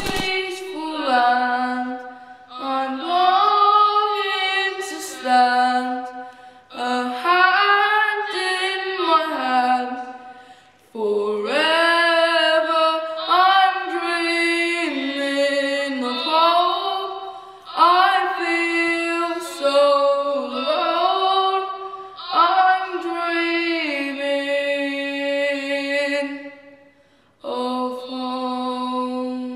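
A boy singing unaccompanied, phrase by phrase, with short breaks between phrases. He finishes on a long held note near the end.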